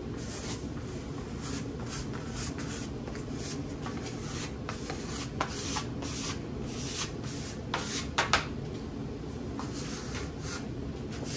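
A plastic dough scraper scraping spilled flour across a stone countertop in repeated short strokes. A few sharper clicks come about eight seconds in.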